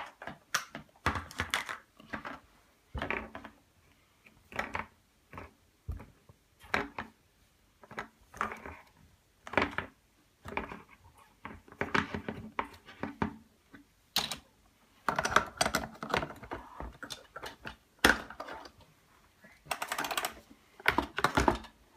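Irregular clicks, taps and clatters of plastic Play-Doh tools and cups being handled on a tabletop, with short bursts of rustling.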